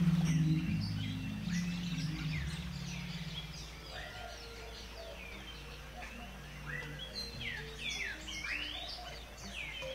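Forest birds chirping and calling, many quick downward-sweeping whistles, busiest near the end. Soft background music fades out under them in the first few seconds.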